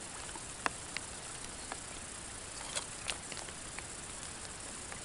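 Quiet waterside background: a steady faint hiss with a few scattered light ticks and taps, the clearest a little under a second in and around three seconds in.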